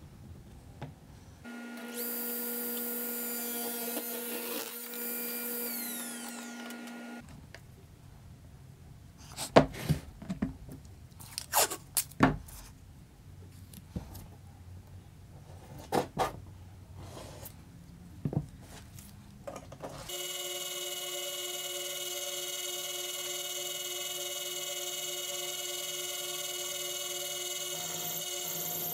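A power saw's motor running steadily as a taped strip of wood is cut, starting suddenly about two-thirds of the way in. Before it come scattered sharp knocks and taps of wood being handled on the bench. Near the start there is a steady electric hum for a few seconds.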